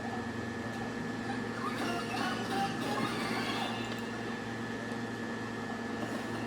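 Nintendo Switch speaker giving out a steady buzzing hum, with faint game sound over it: the noise of a faulty left-side speaker.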